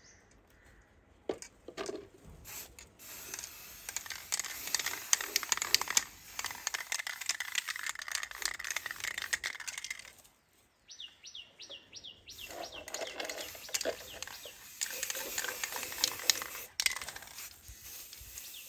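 Aerosol spray-paint can hissing as it sprays paint onto a plastic bottle, in two long stretches with a pause about ten seconds in, many small clicks running through it. A short run of high chirps comes in the pause.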